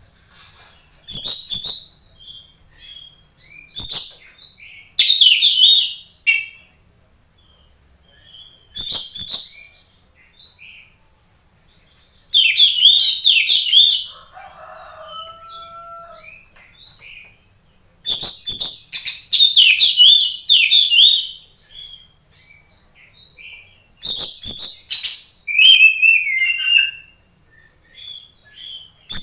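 Oriental magpie-robin singing loud, rapidly varied whistled and chattering phrases in bursts of one to three seconds, with quieter scattered calls between them. Wing flutters come now and then as the bird moves about the cage.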